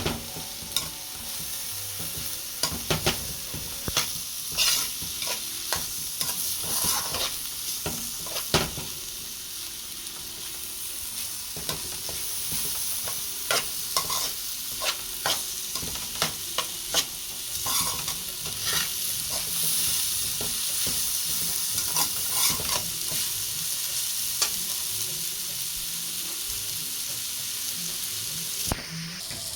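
Brown rice parching in hot oil in a pot, sizzling steadily, with a spoon stirring it and scraping and knocking against the pot in frequent sharp strokes.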